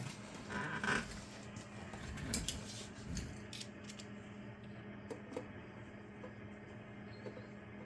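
Small clicks, taps and a brief scrape of a screwdriver and metal parts being handled on a workbench, busiest in the first few seconds and then only a few light clicks, over a steady low hum.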